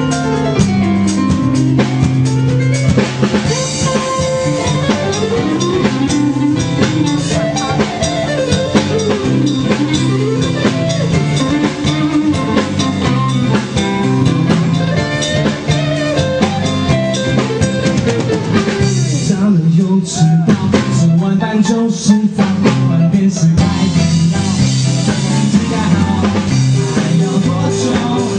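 A rock band playing live on stage in an instrumental passage: drum kit, keyboards and guitar together with a steady beat. The band thins out briefly about two-thirds of the way through before the full sound returns.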